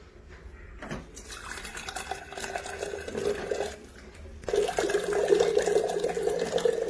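Water running from a water cooler's dispenser tap into a container, in two runs with a short break between, the second louder.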